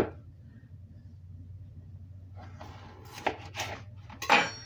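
Kitchen knife knocking on a cutting board as a stick of butter is cut into tablespoons: a few sharp knocks in the second half, the loudest near the end with a brief metallic ring, over a steady low hum.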